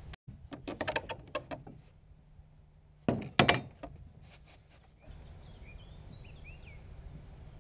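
Hand tools and timber being handled on a wooden roof: a run of light clicks and knocks, then two loud wooden knocks about three seconds in.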